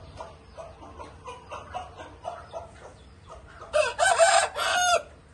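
Rooster clucking in a quick run of short calls, about three a second, then crowing loudly for a little over a second near the end.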